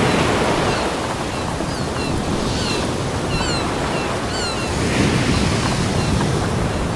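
Ocean surf rushing steadily onto a beach, building into another swell about five seconds in. A few short, high chirps sound over it in the middle.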